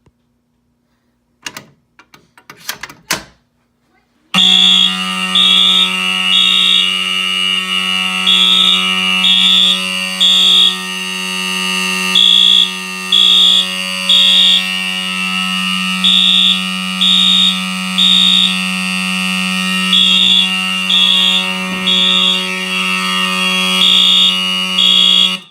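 A few sharp clicks as a Simplex T-bar fire alarm pull station is pulled. About four seconds in, the fire alarm goes off: an Edwards mechanical horn buzzes continuously with a steady low tone, and a Wheelock MT horn on top sounds the code-3 temporal pattern of three beeps, a pause, repeating. Both cut off suddenly near the end as the alarm is silenced.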